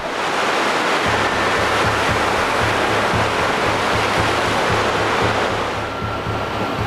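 Rough sea surf breaking against the concrete tetrapods of a breakwater, a loud steady rush of waves. Background music with a low repeating beat comes in about a second in.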